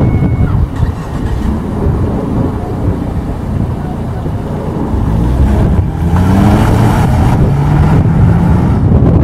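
Ford Fusion sedan pulling away from a stop and driving off, with a steady low rumble throughout. Its engine note rises about halfway through as it accelerates.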